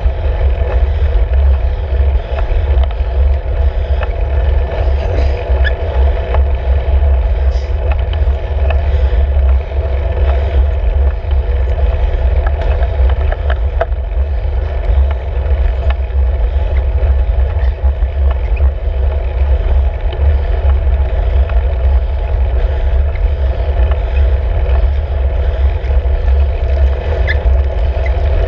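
Steady, loud low rumble of wind and road vibration on the microphone of a camera mounted on a road bike's handlebars as it rides uphill, with a few faint ticks.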